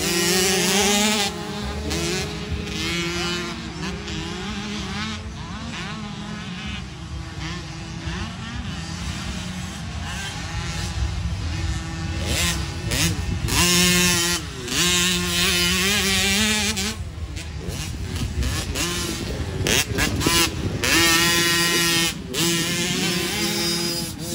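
Engines of small youth motocross dirt bikes revving hard around a dirt track, several at once. Their pitch climbs and drops again and again through the gears. Bikes pass louder about halfway through and again near the end.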